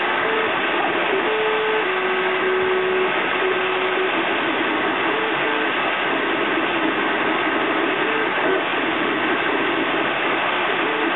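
FDM 3D printer at work: a steady fan hiss, with the stepper motors singing short notes that jump between a few pitches as the print head moves, busiest in the first few seconds and again near the end.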